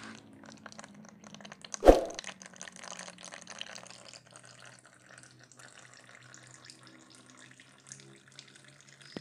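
Thin stream of used engine oil trickling from a Maruti 800's sump drain hole into a tub of drained oil, a fine crackling splash that slowly fades. A single loud knock sounds about two seconds in.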